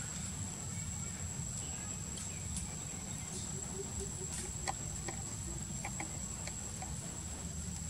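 Outdoor forest ambience: a steady high-pitched whine over a low rumble, with scattered faint clicks. A brief run of quick low clucking pulses comes about three and a half seconds in.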